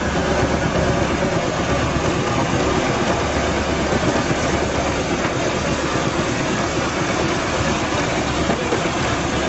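Vintage farm tractor's engine running steadily as it drives on a polygonal wheel of hinged steel plates, with a continuous mechanical clatter.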